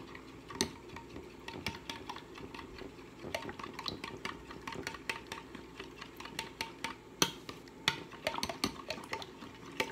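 A metal spoon stirring a thick creamy sauce in a glass bowl, with many small clinks of the spoon against the glass and a louder clink about seven seconds in.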